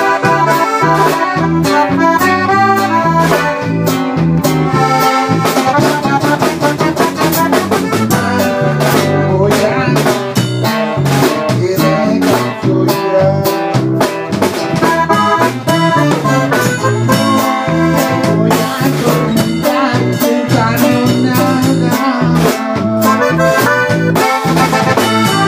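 Button accordion playing norteño melody lines over strummed acoustic guitar, live in a small room, at a steady dance rhythm.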